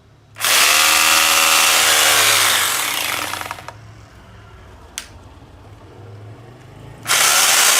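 A freshly reassembled electric rotary hammer drill test-run: it is switched on and spins up, runs for about two seconds, winds down when released, and is switched on again near the end. There is a single click in the pause.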